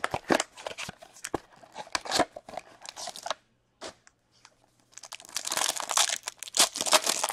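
Scattered crackles and taps as a pack is handled out of a hockey card box, then, about five seconds in, the wrapper of a sealed trading-card pack is torn open, crinkling densely for about two seconds.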